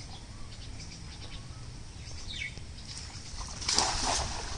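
A cast net landing flat on pond water about three and a half seconds in: one short splash as its weighted rim hits the surface. Birds chirp in the background.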